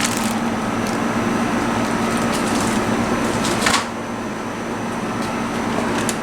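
Steady hum and fan noise of a running air conditioner, with scattered clicks and a louder scrape about three and a half seconds in as plastic parts of a window air conditioner are handled.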